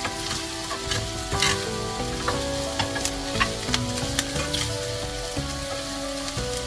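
Food sizzling as it fries in a pan and is stirred, a steady hiss with a cluster of sharp clicks and ticks in the middle, under background music.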